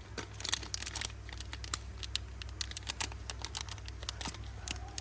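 Handling noise of small stick-on lighter emblems and their packaging: scattered light clicks and taps with faint crinkling, over a low steady hum.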